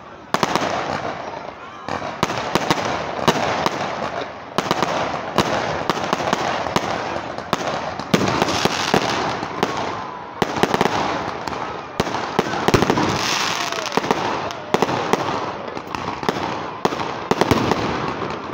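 A fireworks display: aerial shells and firecrackers going off in quick succession, many sharp bangs with crackling between them.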